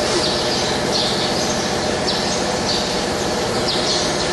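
EASTAR CNC 300 slotting machine running: a steady mechanical hum under a high squeak that repeats about twice a second.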